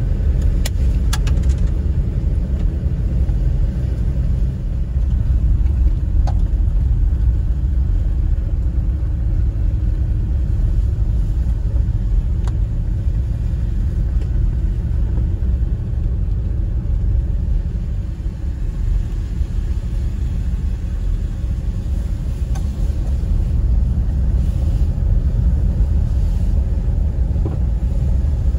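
Jeep Gladiator driving along a wet gravel road, heard from inside the cab: a steady low rumble of engine and tyres, with a few faint ticks.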